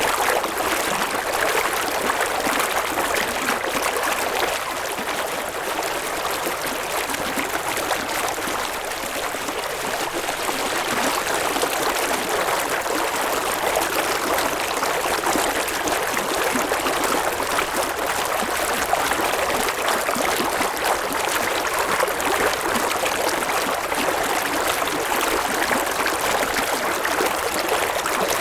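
River water flowing and babbling over rocks in a steady rush, dipping slightly for a few seconds early on.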